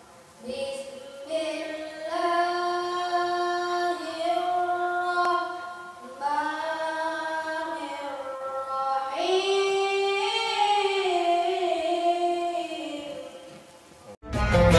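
A boy qori reciting the Quran in the melodic tilawah style: long, high held phrases with ornamented turns, broken by short breaths. Near the end the recitation cuts off and loud instrumental music starts abruptly.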